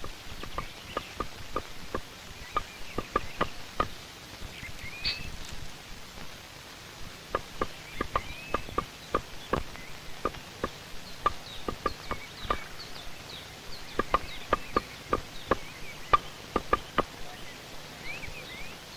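A woodpecker hammering on wood: irregular single knocks in loose clusters, each ringing with a hollow note, while small birds chirp and whistle.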